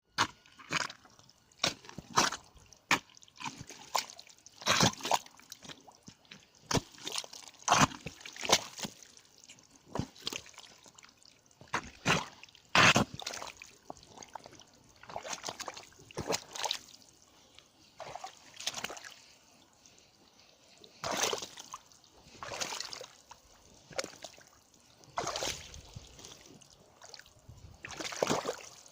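Red Hunter wellington boots squelching wet in mud, one slosh per step. The strokes come quick and sharp at first, then slower and longer in the second half.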